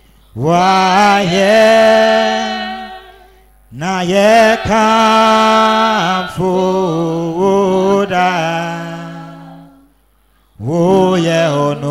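A single voice singing slow, drawn-out worship phrases with no accompaniment. Each line is held for about three seconds, sliding up into its first note, with short breaks between lines.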